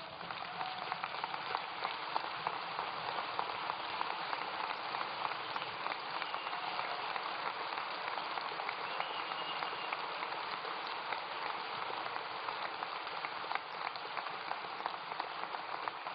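Large audience applauding: dense, steady clapping with no speech over it.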